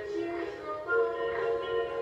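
Background music: held notes shifting in pitch over a light beat about once a second.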